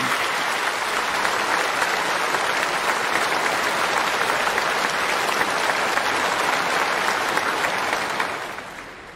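A large audience applauding steadily, the applause dying away about eight seconds in.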